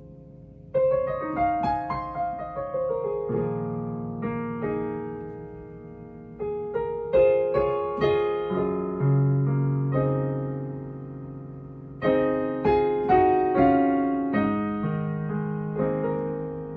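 Solo piano improvisation on a digital piano: chords under a melody, played in phrases that start about a second in, again near the middle and again a few seconds later, ending on a held chord that fades.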